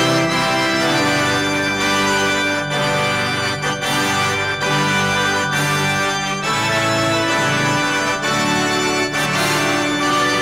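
Electronic keyboard playing a run of sustained chords that change every second or so, as the instrumental lead-in to a hymn.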